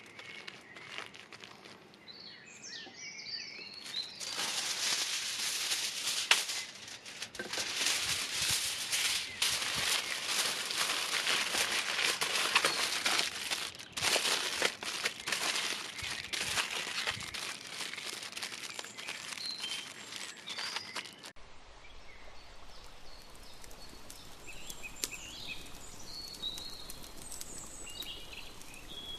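Aluminium foil crinkling and rustling in a busy run as hands fold and pull open a foil packet. Around two-thirds of the way through the sound changes abruptly to birds chirping now and then over a steady outdoor background.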